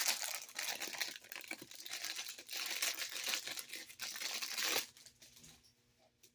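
Packaging crinkling and rustling as it is handled and opened, stopping almost five seconds in.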